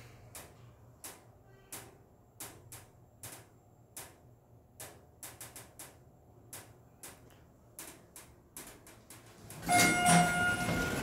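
Scattered sharp clicks, about two a second, then near the end the Schindler hydraulic elevator's doors sliding open with a loud rush and a steady whine.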